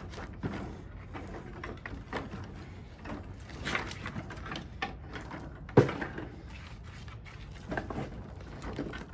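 Irregular clinks, scrapes and knocks of hand work on metal parts, with one sharp knock about six seconds in.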